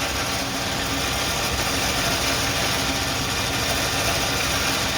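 Smittybilt XO2 12,000 lb electric winch running steadily as it spools its rope onto the drum, over the truck's idling engine. The engine is kept running because the winch draws heavy current from the battery.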